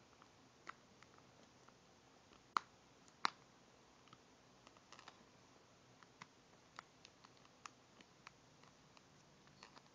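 Small, scattered clicks and taps of fingers handling a Samsung Galaxy S4 smartphone and its plastic case, with two louder clicks about two and a half and three seconds in, over near silence.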